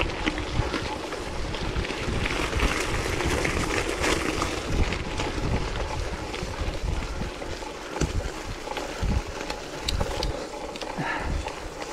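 Wind buffeting the microphone over the rolling noise of a mountain bike ridden on a wet, muddy trail, with a few short knocks and rattles from bumps in the second half.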